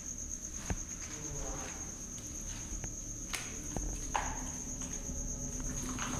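A cricket trilling steadily on one high pitch, with scattered light clicks and scuffs around it.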